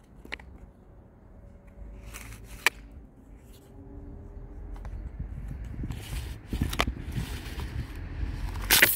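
Sharp clicks and rustling as the plastic recoil starter housing of a Lider 4114 chainsaw is handled with its new starter rope. Near the end comes a loud clatter, which fits the starter pulley coming loose from the housing because its retaining screw was not fitted.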